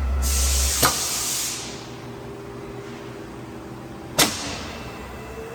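CNC metal spinning lathe at work: a low hum and a burst of hiss, a sharp clank about a second in, then a quieter stretch and another sharp clank near the end.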